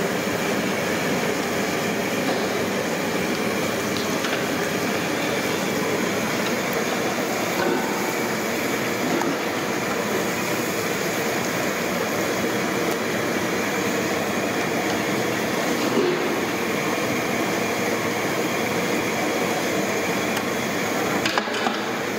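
Hot oil sizzling steadily in iron kadais as pieces of chicken deep-fry, a continuous frying hiss with a few faint ticks.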